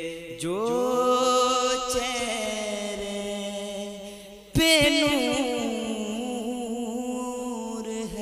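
Wordless devotional singing in naat style, drawn out in long held notes. One note slides up and is held, then a second phrase begins sharply about four and a half seconds in, wavering and slowly falling.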